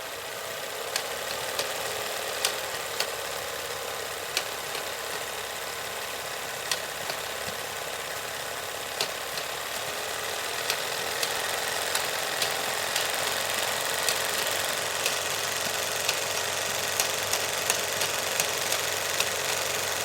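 Film being loaded into a camera: sharp, irregular clicks and small mechanical handling noises over a steady hiss, the clicks coming faster near the end.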